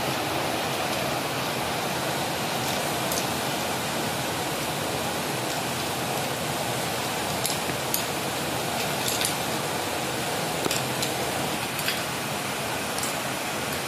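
Ice cubes clinking now and then against a plastic spoon and drinking glasses, a handful of light clicks over a steady rushing hiss.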